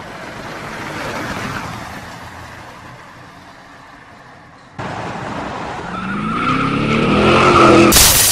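A car speeding up, its engine rising in pitch and its tyres squealing, then a sudden loud crash near the end. Before that, a rushing noise swells and fades.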